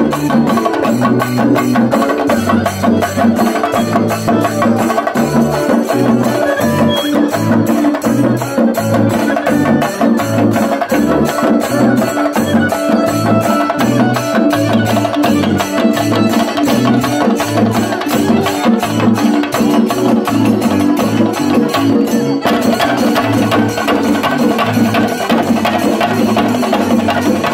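Violin playing a folk melody over loud, fast, steady chenda drumming, with low bass notes stepping underneath, in a live street band performance of Padakali and Shingari-style music.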